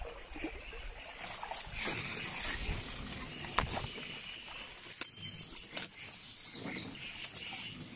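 Reeds rustling and brushing against a small boat as it pushes through a reed bed, with a few sharp snaps and light water sloshing. The rustling is loudest in the middle.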